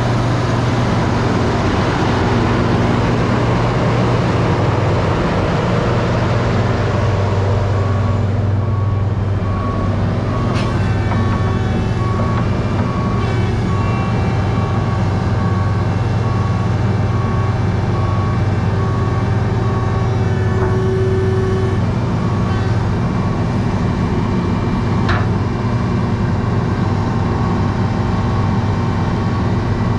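Komatsu PC800-7 hydraulic excavator's six-cylinder turbodiesel running under load as the machine swings and works its boom and bucket. There is a steady low engine hum, heavier for the first several seconds and then settling, with a faint beep repeating evenly for several seconds in the middle.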